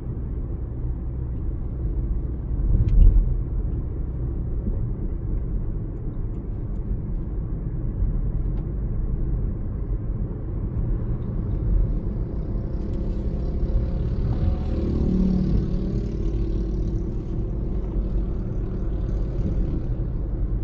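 A vehicle driving along a road: a steady low rumble of engine and road noise, with a bump about three seconds in and a hissier stretch in the second half.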